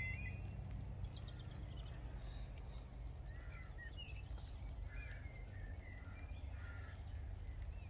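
A level crossing's two-tone warning alarm cuts off just after the start, then birds call now and then over a low steady hum.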